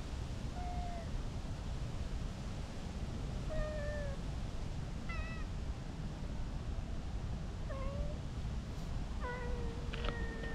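Cat meowing: about five short meows a couple of seconds apart, the last one held for about a second, over a steady low rumble, with a couple of sharp clicks near the end.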